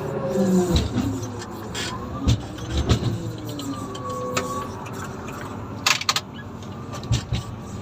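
Komatsu motor grader's diesel engine running under working load, its pitch rising and falling with the revs, with a handful of sharp knocks and clatters from the machine.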